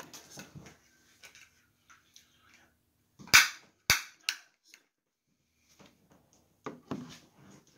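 Three sharp clicks about half a second apart, a little over three seconds in, the first one longest, then faint rustling and shuffling near the end.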